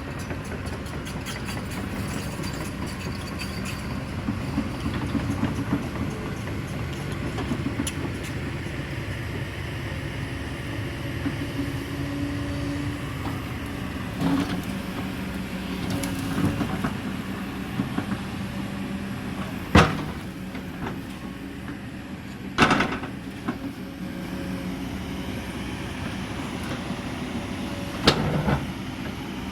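Excavator diesel engine running steadily, with three loud, sharp knocks in the last ten seconds.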